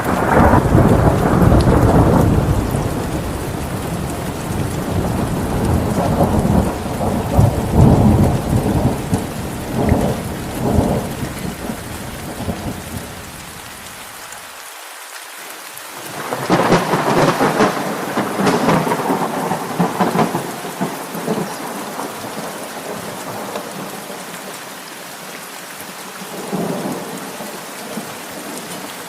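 Steady rain with rolling thunder: a long low rumble fades over the first half, a second thunderclap builds a couple of seconds later and rolls away, and a faint further rumble comes near the end.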